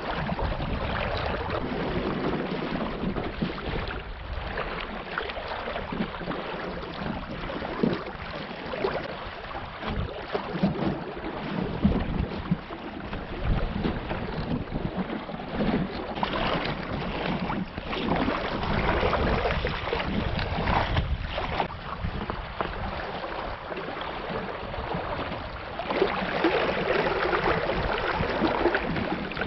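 Choppy lake water splashing and rushing along the hull of a small Optimist sailing dinghy under way, with wind buffeting the microphone.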